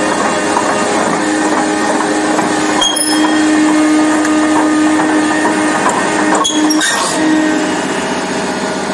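Steel crawler tracks of a heavy tracked machine clanking and grinding on a concrete floor, over a steady machine drone. A couple of sharper metallic clacks come about three and about seven seconds in.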